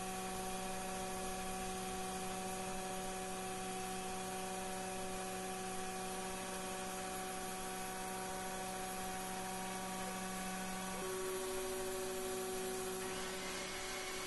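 Taig CNC mill spindle running at its top speed of 10,600 RPM, with a 1/8-inch flat-bottom end mill taking a light cut in 6061 aluminium: a steady whine of several held tones over a hiss. About eleven seconds in, the tones shift as an oilless air compressor starts up.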